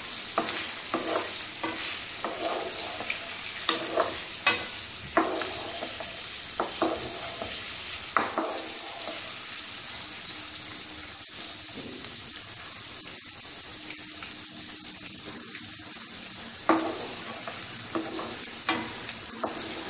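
Arbi ki badi (rolled colocasia-leaf pieces) sizzling in hot oil in a kadai, with a steady hiss. A wooden spatula stirs them, scraping and knocking against the pan now and then, most often in the first half and again near the end.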